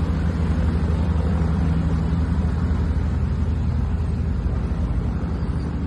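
An engine running steadily at an even speed, a low, constant drone.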